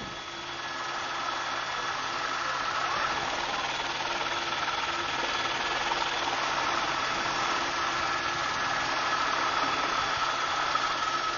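Helicopter running steadily, heard from inside the cabin: a dense, even wash of engine and rotor noise with a few steady whining tones, getting somewhat louder over the first couple of seconds.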